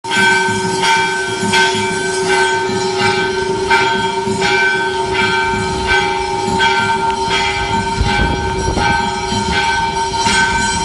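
Temple bell struck over and over, about one and a half strikes a second, each stroke ringing on into the next. Underneath runs a low rush of floodwater.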